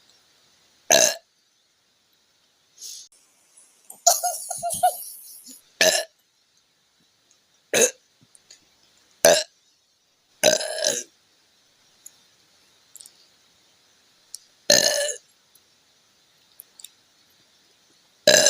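A young woman burping repeatedly, about eight separate burps a second or few apart. Most are short, and one just after four seconds runs longer. They are soda burps, brought up by gulping the carbonated apple drink Appy Fizz.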